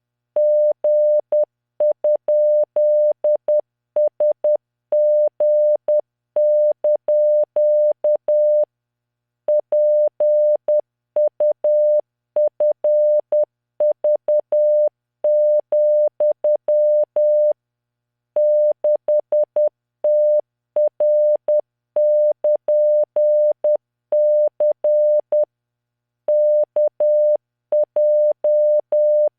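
Computer-generated Morse code: a single 600 Hz tone keyed in dots and dashes at 10 words per minute, each mark starting and stopping with a faint click. It sends random five-character code groups, with a longer pause between groups.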